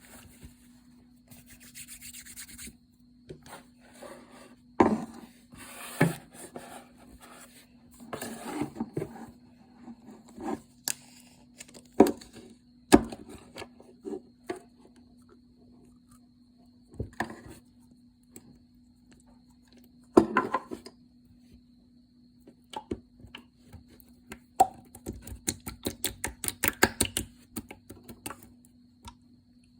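Hands playing with slime: scattered sticky clicks, pops and short squelches as it is pressed, poked and pulled, with a quick run of crackling pops near the end.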